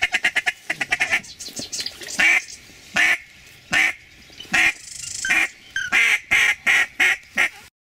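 Mallard-type quacking: a fast chattering run of short notes, then loud single quacks about once a second, ending in a quick cluster of quacks. The sound cuts off abruptly near the end.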